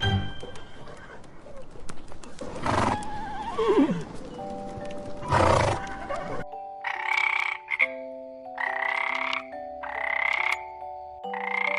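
A horse outdoors, with a short falling whinny about four seconds in. Then, after a sudden cut about six seconds in, a frog croaking in regular calls about once a second over held music notes.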